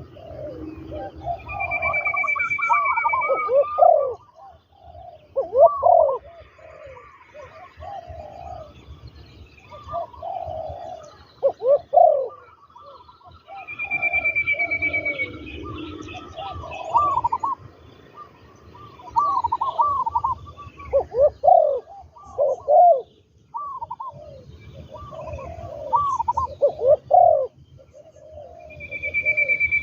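Spotted doves cooing, phrase after phrase throughout, from a trained decoy dove and a wild dove. A thin, steady high whistle lasting a second or two sounds three times: about two seconds in, around fourteen seconds, and at the very end.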